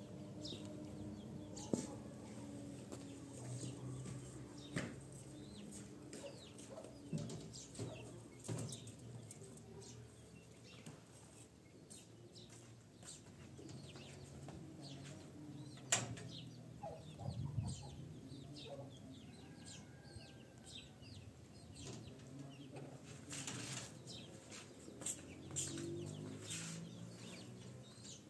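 Chickens clucking, low and on and off, with scattered sharp clicks and knocks; the loudest knocks come about two seconds in and near the middle.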